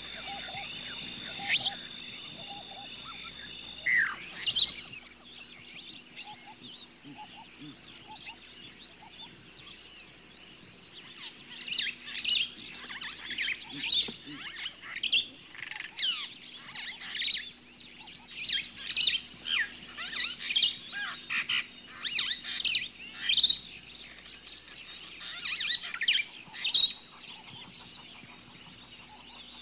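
Wild birds chirping and calling: many short, quick downward chirps over a faint steady high trill. For the first four seconds a loud, rapidly pulsing high buzz runs, then stops suddenly.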